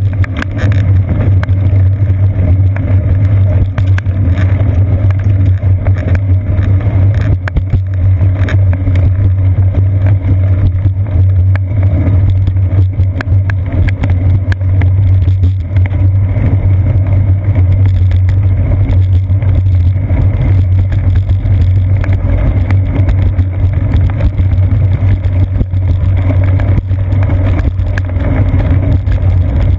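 Steady low rumble of wind and road vibration picked up by a GoPro Hero 2 on a bicycle's seat post as the bike rides over wet concrete, with scattered small knocks.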